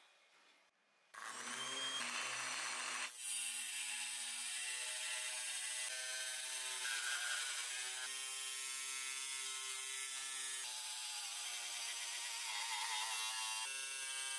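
Miniature hobby table saw switching on about a second in and running with a steady motor whine, its small circular blade cutting a thin brown sheet, the pitch shifting a few times as the cut goes on.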